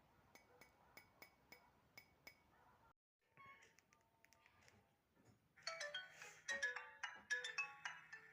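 Nokia 210 mobile phone playing its ringtones through its small speaker: a quiet run of short, evenly spaced tones, a brief break about three seconds in, then from about two-thirds of the way through a louder, busier ringtone melody.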